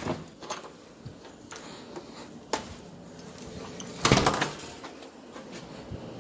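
Scattered light knocks from handling a phone, then an apartment front door pulled shut by its knob: a louder clatter and clunk about four seconds in.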